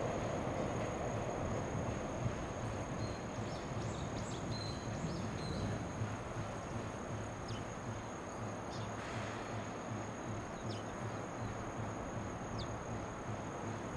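Distant container freight train rolling past, its rumble slowly fading as the last wagons move away. A few short bird chirps and a steady thin high whine sit over it.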